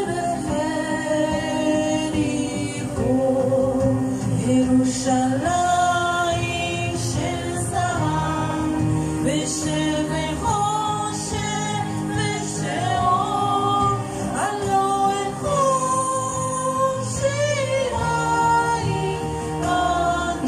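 A woman singing a slow song into a handheld microphone over a recorded instrumental backing track with steady held low notes.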